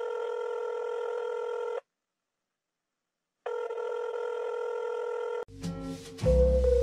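A steady electronic tone sounds twice, about two seconds each time, with a pause of silence between, like a phone's ringing tone. Music starts near the end.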